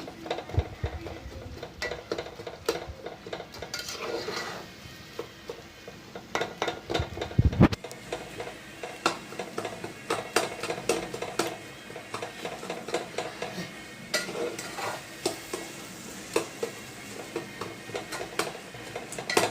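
A spoon stirring and scraping a thick curry gravy in a pan, clicking against the metal again and again, with a faint sizzle of the masala frying in its oil. There is a dull thud about seven seconds in.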